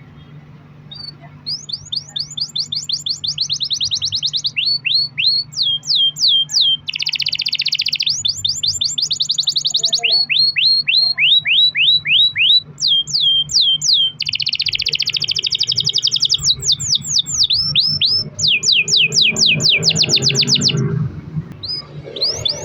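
Domestic canary singing a long rolling song: trains of rapid repeated notes, each phrase at a different pitch and speed, pausing briefly about 21 seconds in and starting again near the end. A steady low hum runs underneath.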